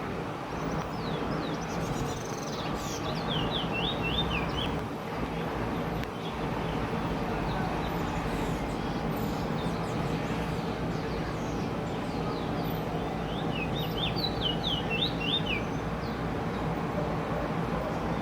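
Trinidad bullfinch (chestnut-bellied seed-finch) singing two short phrases of quick, descending whistled notes about ten seconds apart, over a steady background hum.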